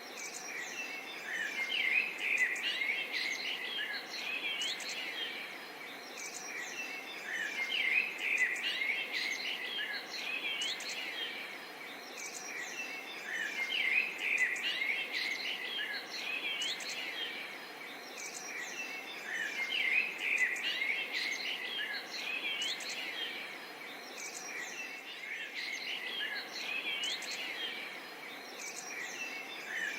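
A chorus of birds chirping and calling over a steady background of insects, the chirping swelling and easing off about every six seconds.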